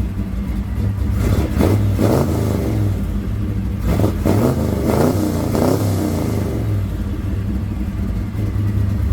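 1964 Chevrolet Impala SS V8 running on freshly installed spark plugs and plug wires, idling steadily with the throttle blipped several times in the middle, each rev rising and falling back to idle.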